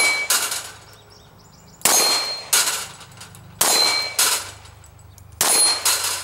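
Glock subcompact 9mm pistol shots, four of them about two seconds apart, each followed by the ringing metallic clang of a steel plate target being hit and knocked down.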